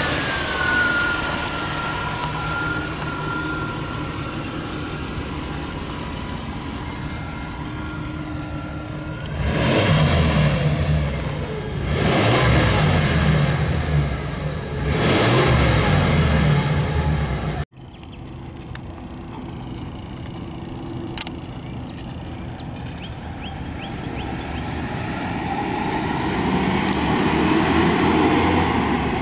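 1988 Pontiac Safari wagon's V8 idling with a thin high whine over it, then revved three times. After a cut, the wagon is heard driving by, its engine growing louder as it comes closer.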